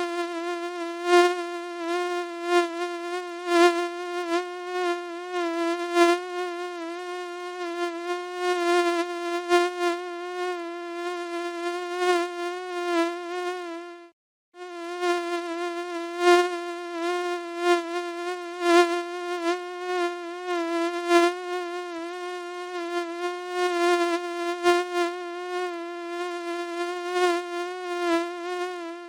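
Mosquito in flight, its wings giving a steady high buzz that wavers slightly in pitch and swells and fades in loudness. The buzz breaks off briefly about halfway through, then resumes.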